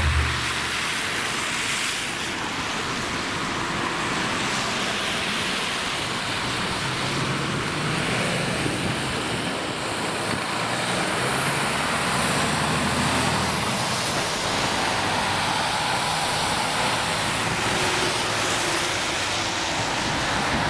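Road traffic on a wet road: tyres hissing through standing water, with a tractor-trailer's diesel engine running as it drives by, loudest about halfway through.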